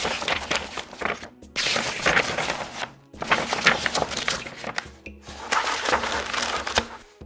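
Paper pages of a book being turned and rustled, about four crackly passages of page movement with short pauses between them.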